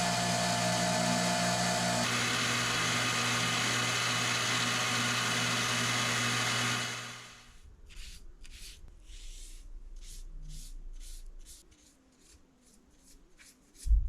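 An electric grinder runs steadily, then is switched off and winds down about seven seconds in. A series of about a dozen short scraping strokes follows, speeding up from under two to about three a second, and a single low thump comes at the very end.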